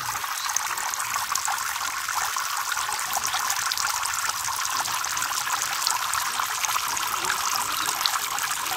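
Water from a small pump-fed fountain falls in many thin streams into a tub of water, making a steady splashing and trickling with many small drop ticks.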